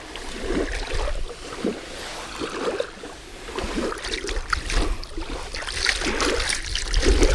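Shallow shoreline water splashing and lapping around a carp being held in it for release, in irregular splashes as the fish moves and small waves wash in.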